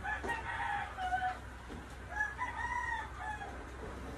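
A rooster crowing: a few short notes, then a longer note that rises and falls.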